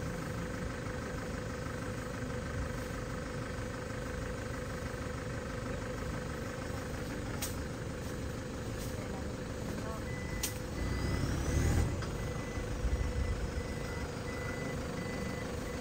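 Off-road safari vehicle's engine idling steadily, with the low rumble rising briefly about two-thirds of the way through. A faint, broken high tone comes and goes over the second half.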